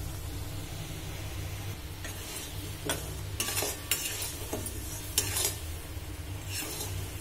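Melting jaggery syrup bubbling and sizzling in a metal kadai, with a spatula scraping and clinking against the pan several times between about three and six and a half seconds in as it is stirred to keep the syrup from sticking to the bottom.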